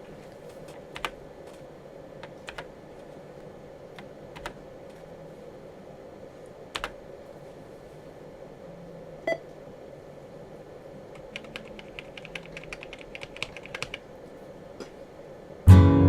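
Computer keyboard keys being typed on the Tandy 1000 EX: scattered single keystrokes, then a quick run of typing about two-thirds of the way in, over a faint steady hum. Acoustic guitar music starts just before the end.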